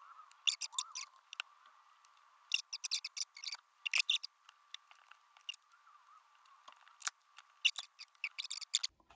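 Irregular clusters of small, sharp clicks and taps: hands handling the opened Topre Realforce keyboard's parts and the new cable as it is fitted.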